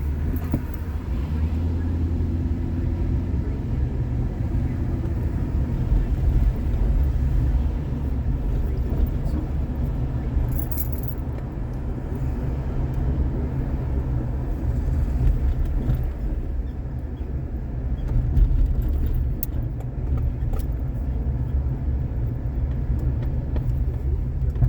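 Steady low rumble of a car being driven, road and engine noise heard from inside the cabin, swelling and easing a little as it goes.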